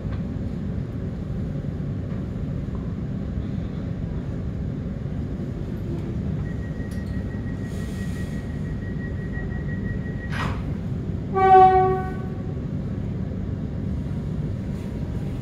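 HCMT electric train standing at the platform with a steady low rumble from its on-board equipment. A faint high tone runs for a few seconds, then comes a sharp click, then one short, loud horn toot just before departure.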